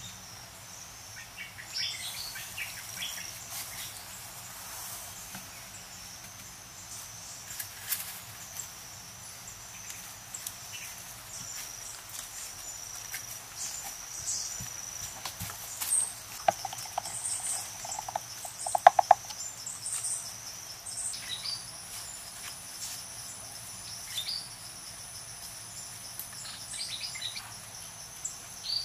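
Forest ambience: a steady high-pitched drone of crickets or other insects, with scattered bird chirps. A little past halfway, a short flurry of sharp clicks is the loudest sound.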